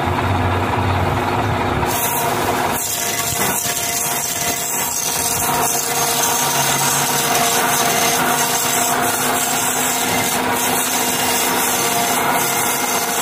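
Metal lathe taking a rough cut on a tiger bronze bushing: the machine hums, and from about two seconds in the cutting tool adds a steady scraping hiss.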